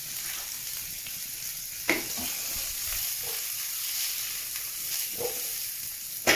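Diced white onions and green bell pepper sizzling steadily in a little hot oil in a nonstick frying pan as they are stirred, with a couple of short knocks against the pan about two and five seconds in.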